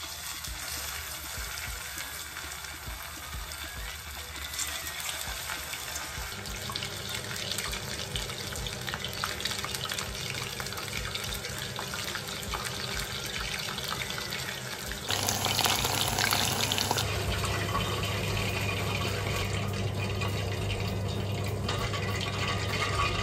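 Cornflour-coated chicken pieces deep-frying in hot oil in a pot, a steady sizzle with fine crackling that grows louder about two-thirds of the way through. A low steady hum runs underneath from partway in.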